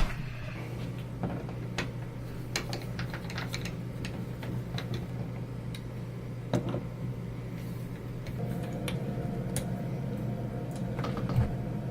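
Scattered small clicks and knocks of deadbolt hardware being handled and worked on at a door, with one louder knock about six and a half seconds in, over a steady low hum.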